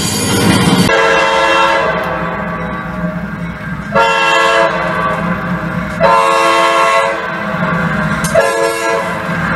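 Multi-chime diesel horn of a sound-equipped HO scale EMD GP30 model locomotive, sounded four times in a row, with the diesel engine's running sound underneath.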